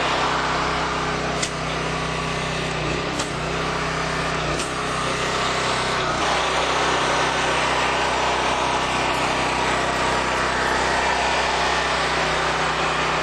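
Honda GX390 single-cylinder engine driving a gas pressure washer's triplex pump, running steadily at working speed, with the hiss of the spray from the lance as chemical soap is sprayed on.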